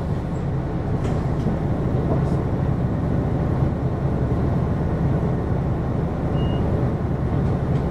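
Hino QKG-LV234N3 city bus running on the road, heard from inside the cabin: a steady low engine and road rumble.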